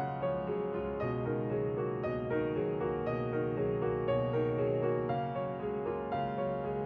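Slow instrumental background music, its held notes changing about once a second.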